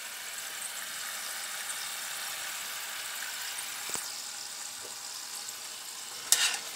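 French fries deep-frying in oil in a stainless steel saucepan, a steady sizzling hiss. About six seconds in, a sharp metallic knock with a brief scrape, loudest thing here, as something strikes the pot.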